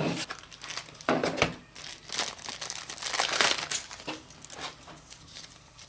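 Packaging of an activity tracker's box being handled and crinkled as its contents are taken out, in irregular rustles that are busiest in the middle and die down near the end.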